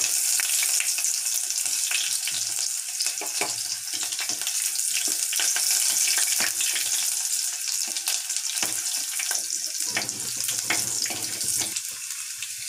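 Mustard seeds and urad dal spluttering in hot oil in a clay pot: a steady sizzle with many quick crackling pops.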